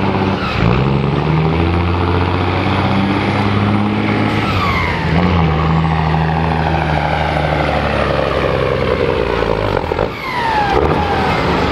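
Semi truck's diesel engine running hard under load as it pulls a weight-transfer sled. Its pitch steps up about half a second in and again around five seconds, and it briefly drops away near the end.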